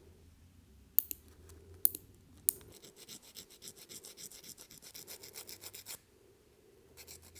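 Nail clipper snipping fingernails three times, then a nail file rubbed quickly back and forth across a nail in a fast, even scraping rhythm for about three seconds.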